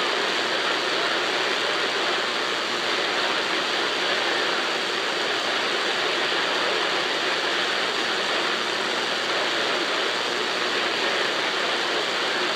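CB radio receiver static on an empty channel: a steady hiss from the speaker with the squelch open and no station transmitting, the signal meter resting at zero.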